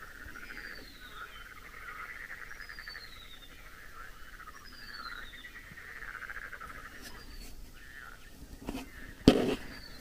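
Chorus of frogs calling in a fast, rattling trill, with a short falling whistle repeated every second or two above it. About nine seconds in, a sudden loud thump.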